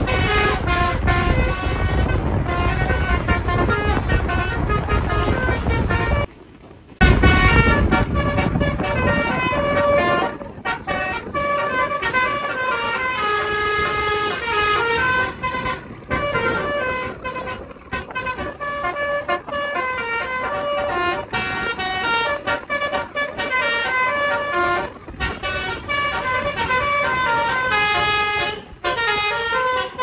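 Tour bus's multi-tone 'telolet basuri' musical air horn playing a melody of held, stepping notes. For roughly the first ten seconds the bus engine's rumble runs underneath, with a brief break about six seconds in.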